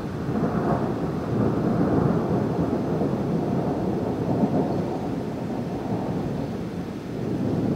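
Thunder from a lightning strike: a long low rumble that builds over the first two seconds, rolls on, and swells again near the end.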